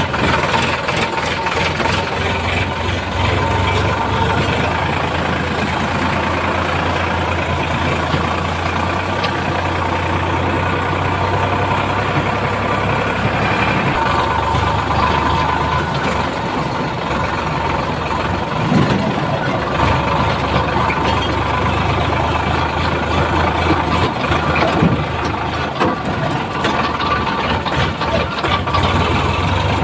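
Heavy diesel machine engine running steadily at low revs, its low hum dipping briefly about halfway through.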